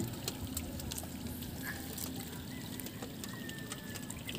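Light rain falling onto calm sea water: scattered soft ticks over a low steady wash, with a faint thin whistle about three seconds in.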